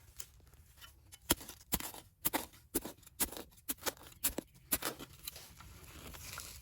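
A tool prying and scraping at a crusted metal find to work it loose: a run of sharp clicks and scrapes for about four seconds, then softer rubbing.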